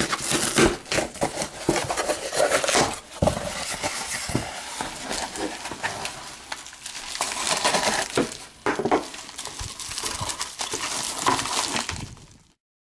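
Hands opening a cardboard shipping box and handling the plastic wrap and white plastic mailer inside: rustling and crinkling of cardboard and plastic, with many small knocks and scrapes. It stops abruptly near the end.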